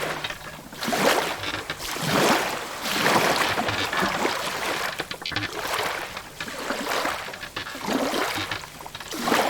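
Sea water splashing and lapping against a wooden ship's hull, swelling and falling away about once a second.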